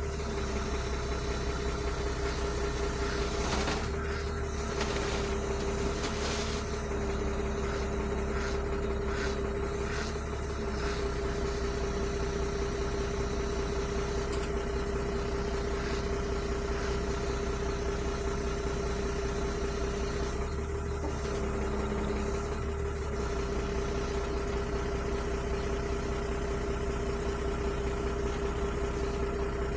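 Heavy diesel engine idling steadily, with a few short knocks or clunks in the first ten seconds or so.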